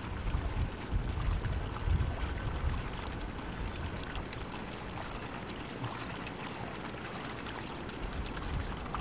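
Wind buffeting a camcorder's built-in microphone in low gusts, easing about two and a half seconds in to a steady hiss with faint crackle.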